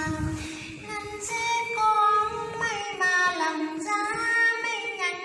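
A woman singing a Vietnamese vè folk ballad solo into a handheld karaoke microphone. She breaks off briefly at the start and comes back in about a second in, over a steady low tone held underneath.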